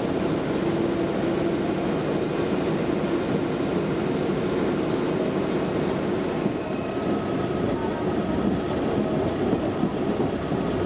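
BEML-built WRB-1 diesel railbus running along the line, a steady rumble of engine and wheels on rails heard from inside at a side window.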